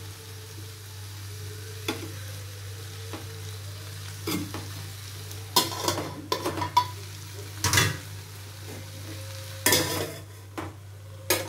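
Steel spatula stirring and scraping thick curry in an aluminium pot as it sizzles, then a perforated steel plate clanking against the pot rim as it is set on as a lid, with several sharp metallic knocks and rings in the second half.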